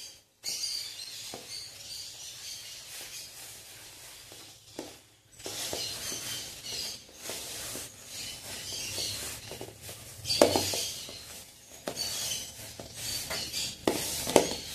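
Hands kneading a dry, crumbly dough of sweet tapioca starch (polvilho), oil and eggs in a metal bowl: a continuous crackly, grainy rustle, with occasional knocks against the bowl, the loudest about ten seconds in and near the end.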